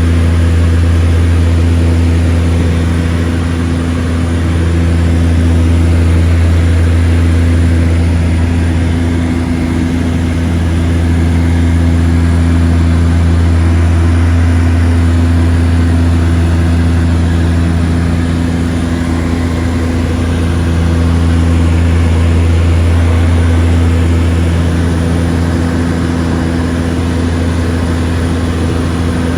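Seaplane's propeller engines droning steadily in flight: a deep, constant hum with higher tones above it, swelling and easing slowly every several seconds.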